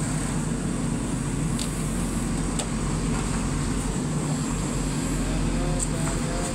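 Diesel engines of a JCB backhoe loader and a heavy truck running steadily as the backhoe's bucket works against the stuck truck, with a couple of light clicks in the first half.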